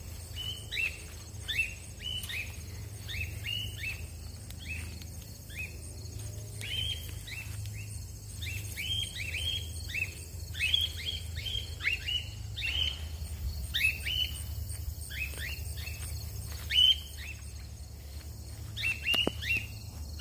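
Cockatiels calling over and over, a steady run of short chirps that each slide down in pitch, several a second at the busiest, over a steady low rumble of outdoor noise.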